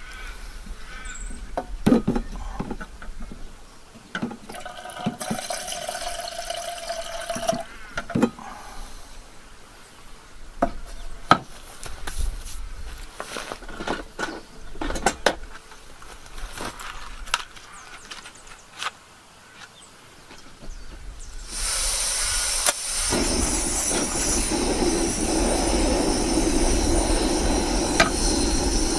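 Knocks and clinks of a metal camping kettle and stove being handled on a table. About three-quarters of the way in, a portable canister gas stove starts hissing, and a second later the hiss becomes a steady, louder rush.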